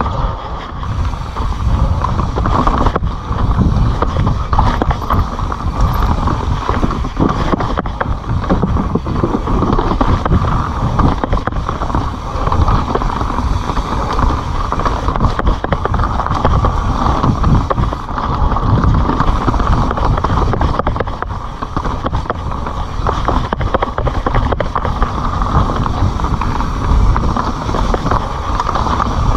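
Kona Honzo ESD hardtail mountain bike ridden down a dirt forest trail, heard from a camera riding along: a steady rush of wind and tyres rolling on dirt, with the bike rattling and knocking over the bumps.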